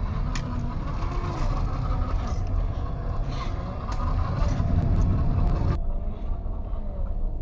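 Electric motor and geared drivetrain of a 1/10-scale Traxxas TRX-4 RC rock crawler running over rocks, its pitch rising and falling with the throttle, over a deep rumble.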